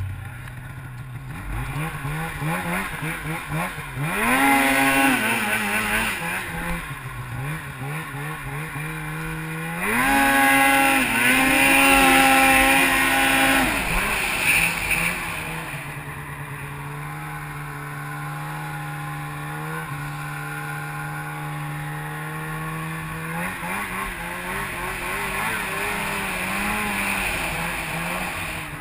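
Polaris Pro RMK 800 snowmobile's two-stroke engine revving hard twice, about four and ten seconds in, each time climbing in pitch, then dropping back and running steadily at lower revs before surging a little again near the end.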